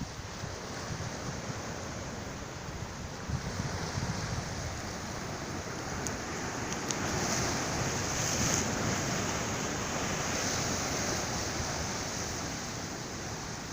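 Sea waves washing ashore, a wave surging louder about eight seconds in and then easing off, with wind buffeting the microphone.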